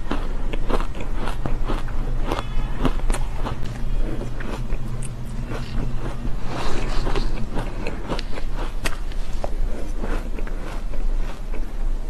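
Close-miked crunching and chewing of soft, frosty shaved ice taken from a spoon, a dense run of irregular crackly crunches, over a steady low hum.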